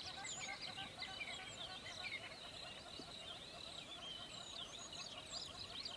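A chorus of many birds calling at once: dense, overlapping short chirps and quick whistled glides, over a steady stream of lower chattering notes.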